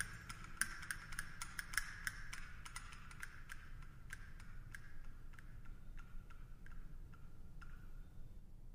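Closing bars of a klezmer-Sephardic music piece: quick percussive taps with a light ringing tone, thinning out and fading away about eight seconds in.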